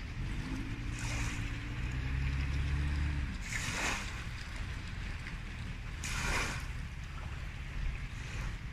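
Storm wind gusting across the microphone in swooshes, about a second, four and six seconds in, over a steady rushing background. A low hum sits under it for the first three seconds.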